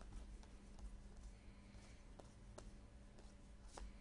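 Near silence, with several faint clicks and light rustles of football trading cards being flipped through by hand, over a low steady hum.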